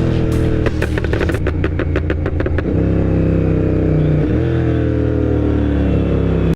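Royal Enfield GT 650's parallel-twin engine through a Moto Torque aftermarket exhaust on a Code6 tune, letting off a rapid string of crackles and pops, about seven a second, for roughly two seconds, then running on steadily with a brief dip and rise in pitch about four seconds in. The rider says the fitted air filter keeps the pops fewer and quieter than they would otherwise be.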